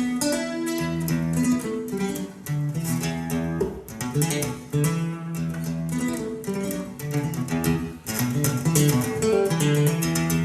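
Recorded music in an instrumental passage, played back through Dali Spektor 2 loudspeakers: strummed acoustic guitar chords over a bass line, the chords changing every second or two.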